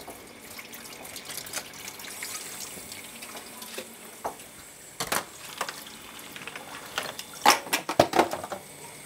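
Kitchen tap running into an aluminium pot of ice water, where a boiled octopus is being chilled. A few sharp knocks and splashes stand out, the loudest about seven to eight seconds in, as the octopus is lifted out of the water.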